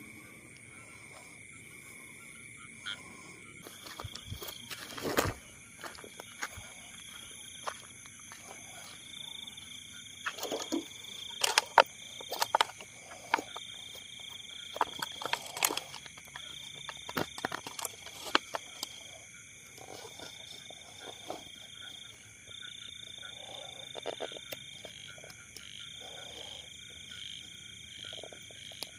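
Frogs and insects calling in a night chorus: steady high-pitched trills, one breaking into repeated trills a second or two long, over rustling and scattered sharp clicks and knocks from hands working through grass.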